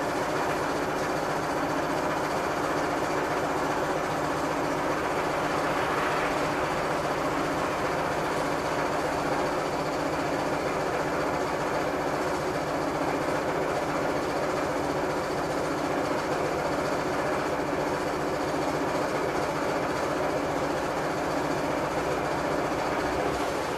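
Passenger-cabin noise of a VMZ-6215 articulated trolleybus in service: a steady electric drive hum with several fixed tones over an even rumble.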